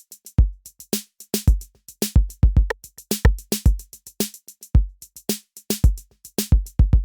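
Background music with a drum-machine beat: deep kick drums and sharp hi-hat clicks in a steady rhythm.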